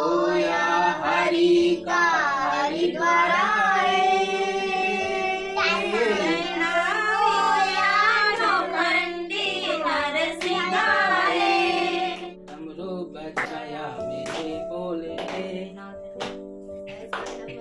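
Women and children singing a Hindu devotional bhajan together, with hand claps keeping time. About twelve seconds in the singing drops away and the claps carry on more sharply.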